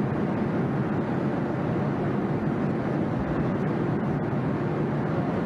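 Steady cabin noise inside a jet airliner in cruise flight: an even, unbroken rush of engine and airflow noise.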